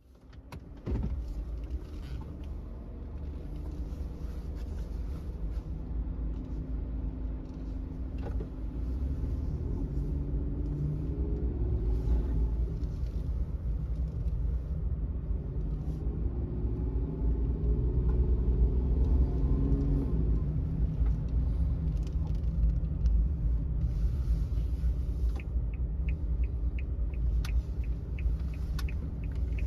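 Suzuki Every kei van's 660 cc three-cylinder engine and road rumble heard from inside the cabin, with the engine pitch rising and falling as it climbs a winding road. A run of quick faint ticks comes near the end.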